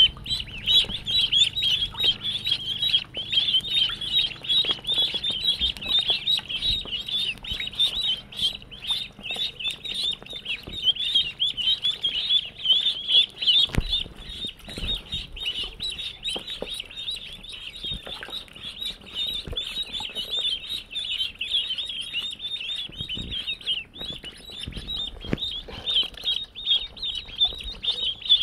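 A large group of ducklings peeping all together, a dense, continuous chorus of short, high peeps that eases a little at times.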